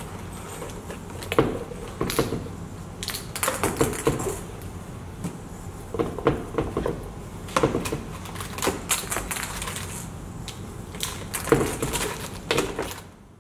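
Hands handling objects on a wooden play board, bending and knocking a flexible plastic tube against the board and a foil sheet: irregular clusters of clicks, taps and rustles.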